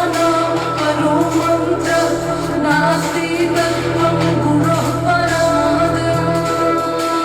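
Hindi devotional song about Shiva playing: a stretch between verses with a steady drone under a wandering melody and some wordless singing.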